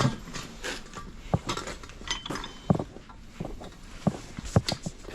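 Irregular metallic clinks and sharp knocks of tools and cast iron pipe fittings being handled and fitted together.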